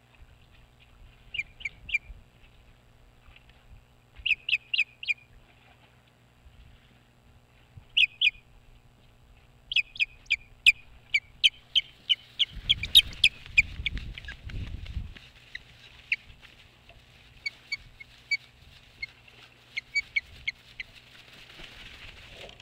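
Osprey calling: repeated series of short, high, sharp chirps, in small bursts at first, then coming fast and loud about ten seconds in before easing off. A low rumble sounds from about twelve to fifteen seconds in.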